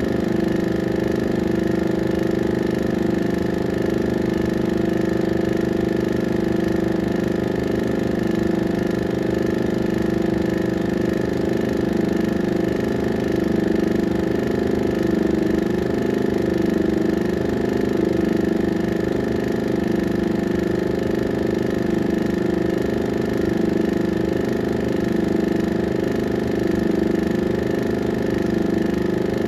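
Steady mechanical whir and hum of a 16mm film projector running, a constant sound with a fast flutter and no change in pitch.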